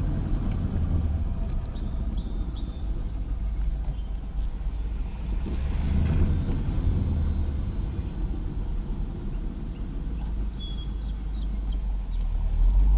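An engine idling roughly, an uneven low rumble that swells slightly about six seconds in. Faint bird chirps in the second half.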